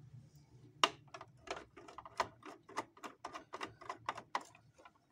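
Quick run of small, irregular clicks and taps starting about a second in, about four or five a second: metal and plastic parts at the needle plate and presser foot of a Juki MO-50e overlock being handled while its bent stitch finger is checked.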